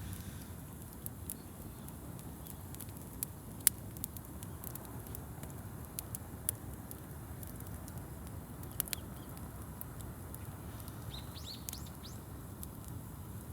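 Wood campfire crackling with scattered sharp pops, the loudest about a third of the way in, over a low steady rumble. Near the end a small bird chirps a quick run of short calls.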